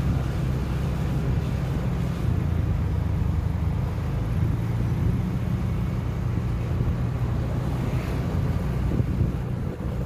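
A motor vehicle's engine running steadily while moving, a low rumble with road noise and wind on the microphone.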